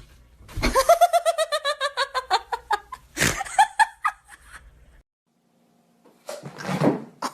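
A person laughing hard: a rapid, high-pitched run of ha-ha bursts that climbs and then falls in pitch. A sharp knock or clatter breaks in about three seconds in, and there is a short noisy burst near the end.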